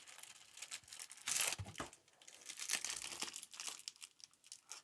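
Clear plastic packaging crinkling in irregular bursts as a set of makeup brushes in plastic sleeves is handled, loudest about a second and a half in.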